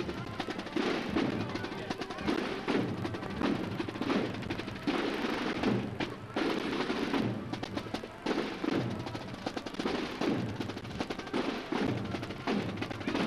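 Marching drums of a bugle-and-drum band playing a steady march rhythm, with snare rolls and heavier drum strokes.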